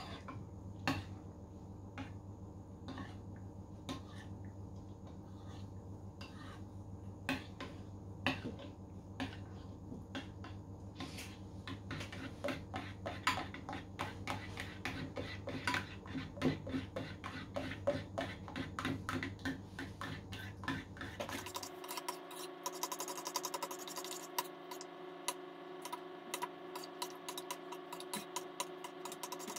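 Metal spoon scraping and tapping against the sides of a bowl while stirring chocolate ganache, a continuous run of small scrapes and clinks.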